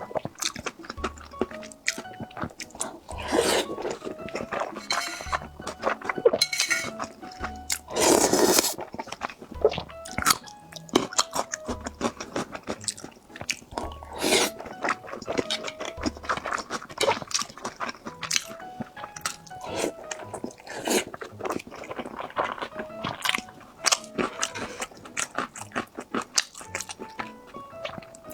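Close-up crunchy chewing and biting, many sharp crackling bites, over background music with a soft steady beat.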